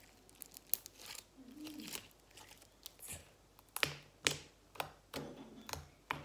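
Hands poking and squeezing a fluffy, slightly sticky slime, giving irregular sticky clicks and pops, some with a soft thump, coming more often in the second half.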